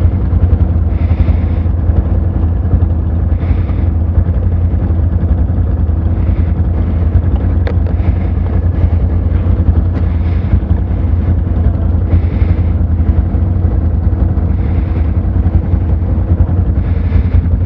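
ATV engine running steadily with a deep low hum. A steady higher tone over it stops near the end.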